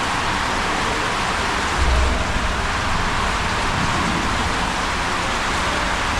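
Steady rushing of water on a waterslide, with a brief low thump about two seconds in.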